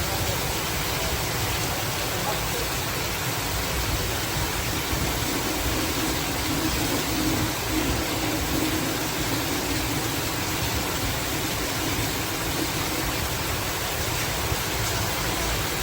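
Steady rain falling, an even hiss of water with no breaks.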